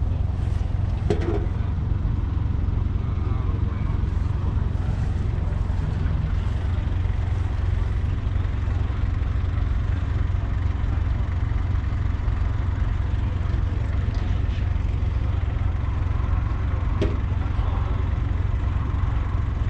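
A 1964 Fordson Dexta's 2.4-litre three-cylinder diesel engine running at a steady idle, a low, even drone.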